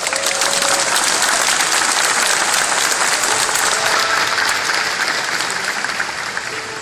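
Audience applauding: a dense patter of many hands clapping that swells in at the start and fades toward the end, with faint music tones beneath.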